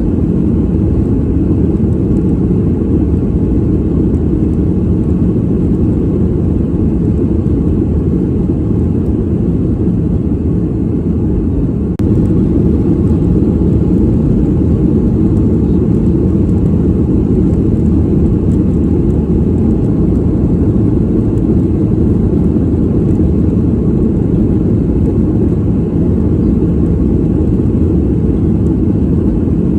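Steady, deep rumble of airliner cabin noise as heard from a passenger seat, with nearly all of its energy in the low range and no distinct tones. About twelve seconds in the level steps up slightly and suddenly, then stays steady.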